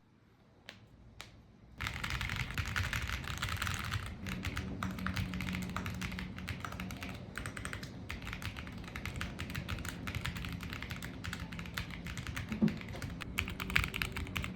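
Fast typing on a Leo80 mechanical keyboard with Voyager Tactile v2 switches and Balloon Party keycaps, quick keystrokes clacking in a dense run. Two lone key presses come about a second in, and steady typing starts near the two-second mark.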